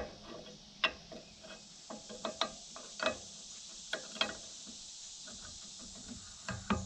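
Scattered, irregular metallic clicks and clinks of hand tools working on a log splitter's hydraulic fittings.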